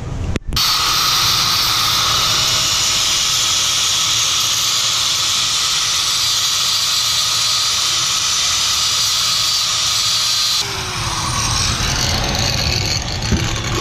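Angle grinder with an abrasive disc grinding metal on a transmission housing: a loud, steady, hissing grind that starts about half a second in. Near the end it stops, and the disc winds down with a falling tone.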